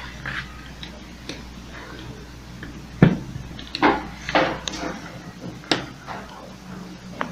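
Screwdriver unscrewing small screws from an opened hair clipper's metal housing: scattered light clicks and scrapes, the sharpest about three seconds in.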